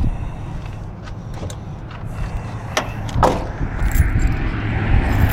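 A car door being opened as someone climbs out of a parked vehicle: rumbling handling noise on a phone's microphone, with a few sharp clicks and two louder clacks about three seconds in.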